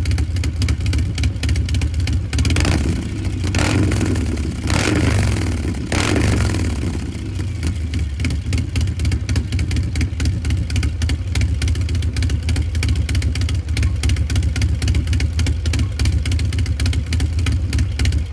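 Harley-Davidson Milwaukee-Eight V-twin with an S&S 475 cam and a Two Brothers Racing Shorty 2-1 exhaust, idling with a steady pulsing beat. It is revved four times in quick blips about three to six seconds in, then drops back to idle.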